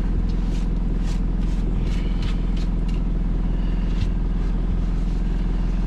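A steady, even motor drone that holds the same pitch throughout, with scattered light clicks and knocks on top.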